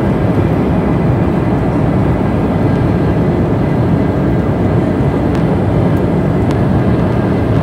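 Steady cabin noise of a jet airliner in flight, heard from a window seat: a loud, even, deep rush of engine and airflow noise.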